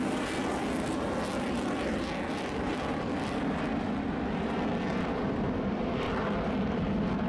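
Fighter jet flying overhead: steady jet engine noise, heaviest in the low rumble, with its upper hiss thinning out about halfway through.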